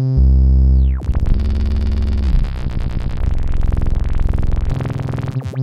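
Held synthesizer notes from FL Studio's 3x Osc run through the Vintage Phaser plugin. A bright held tone drops to a lower, louder note just after the start and cuts off about a second in. A buzzy tone with a fast, fluttering phaser modulation then plays until near the end.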